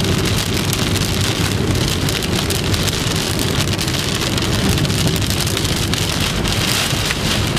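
Heavy storm rain pelting a car, a dense, steady patter of drops over a low rumble.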